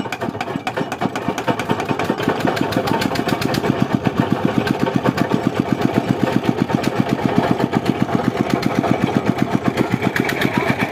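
Small single-cylinder diesel engine on a tubewell boring rig, just hand-cranked into life, running with a rapid even chug. Its beat gets louder over the first few seconds as it picks up speed, then settles steady.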